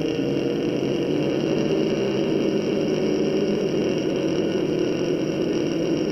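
Ujjayi pranayama breath: one long, steady inhalation drawn in through a narrowed throat, making a continuous throat sound.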